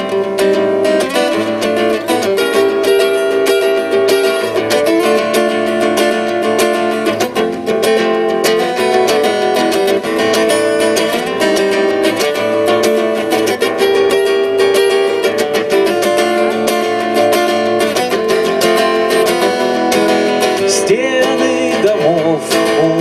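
Acoustic guitar strummed in a steady rhythm, playing the instrumental introduction to a song before the singing begins.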